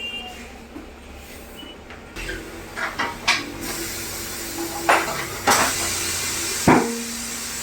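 Workshop knocks and metal clanks, then a steady hiss of compressed air from an air line from about three and a half seconds in, as a car tyre is inflated.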